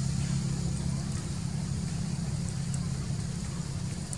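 Steady low motor hum, like an engine running at idle, with a faint hiss above it.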